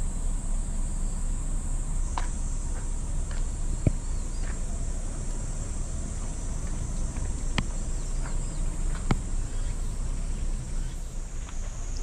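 Steady high-pitched insect drone, with a few faint short chirps and clicks scattered through it over a low rumble.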